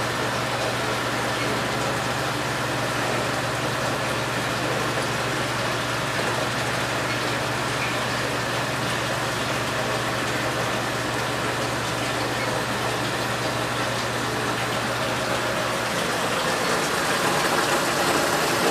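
Steady mechanical hum and hiss of a Fanuc Robocut α-0iC wire EDM running with its dielectric pump and chiller on as its axes are jogged. Near the end the low hum fades and the overall sound grows a little louder.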